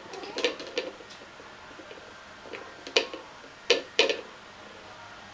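A toy jar being knocked and pushed about by kittens: a few sharp clicks and knocks, the loudest about three and four seconds in.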